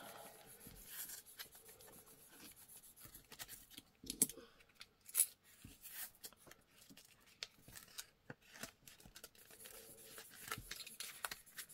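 Banknotes and paper envelopes rustling and crinkling as folded notes are handled and slid into an envelope. The crinkles are short and scattered, with a couple of sharper ones about four and five seconds in.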